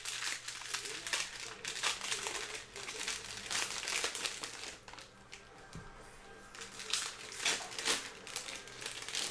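Cellophane trading-card pack wrappers crinkling in irregular bursts as football card packs are torn open and handled.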